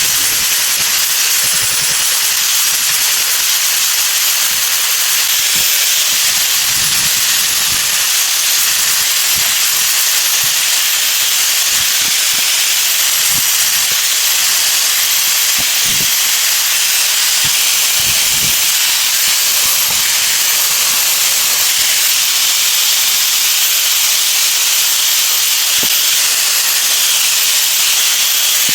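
Steady, loud hiss with a thin, very high whine wavering above it.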